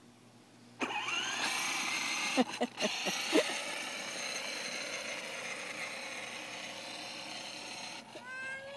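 Small electric motor and gearbox of a battery-powered kids' ride-on quad whining as it pulls away about a second in, with its plastic wheels rolling on asphalt. The whine runs steadily, then cuts off about a second before the end as the quad stops.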